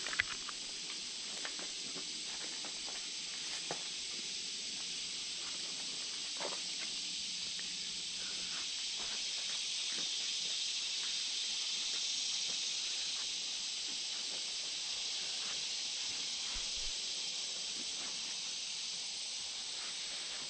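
Steady high-pitched hiss of an insect chorus in summer woodland, swelling slightly midway, with faint footsteps on leaf litter.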